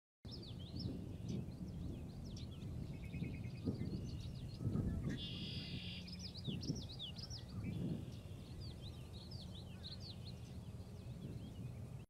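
Several songbirds singing and chirping: quick, high sliding notes and a short buzzy trill about three seconds in, over a low, uneven rumble.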